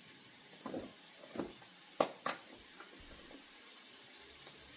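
A few sharp knocks of a utensil against a cooking pot, two of them close together about two seconds in, over a faint sizzle of onions and peppers stewing in oil.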